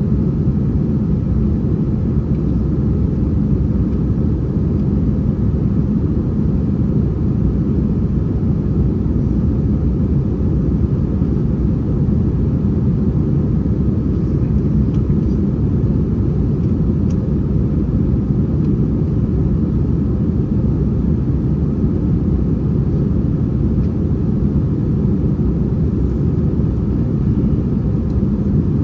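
Steady low roar heard inside the passenger cabin of an Airbus A321-231, the airliner's IAE V2500 turbofans and rushing air blending into one unbroken rumble. It holds level with no rise or fall.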